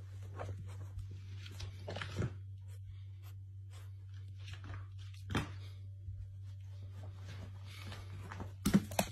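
Quiet room tone: a steady low hum with faint scattered rustles and a few soft knocks, about two seconds in, at five and a half seconds, and near the end.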